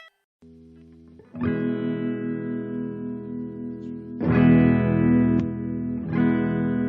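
Electric guitar played through a single-transistor boost circuit turned up to full volume: three strummed chords about two seconds apart, each left to ring out. A faint low hum is there just before the first chord.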